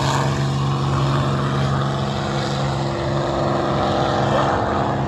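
P-51 Mustang's V-12 piston engine running at power, a steady droning note with its propeller.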